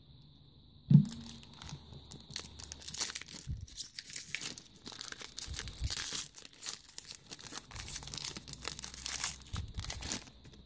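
2017 Select Footy Stars foil trading-card pack being torn open and crinkled in the hands, a long run of crackly tearing and rustling. A single thump about a second in.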